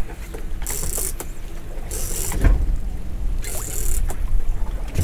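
Steady low rumble of wind and sea noise aboard a small boat, with a short hiss about every second and a half.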